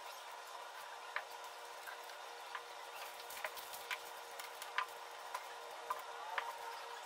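Faint, scattered ticks and crinkles of green tissue-paper strips being handled and glued onto a paper plate, over a steady hum.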